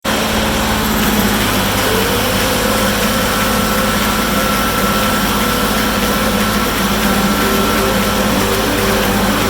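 Farm tractor engine running steadily while square baling hay, a constant drone with a few steady whining tones over it.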